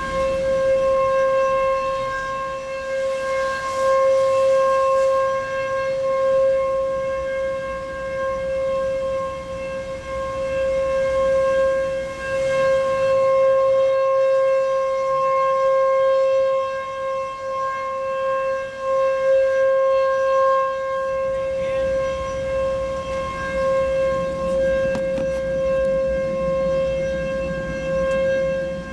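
Outdoor tornado warning siren holding one steady, unchanging pitch, its loudness swelling and fading every few seconds.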